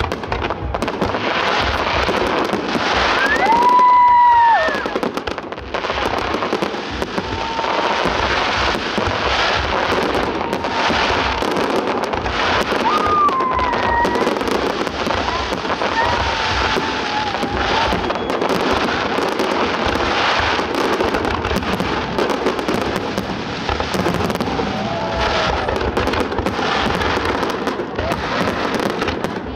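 Large fireworks display: a continuous barrage of shells bursting and crackling. A long whistling tone stands out about four seconds in, the loudest moment, with a few shorter whistles later.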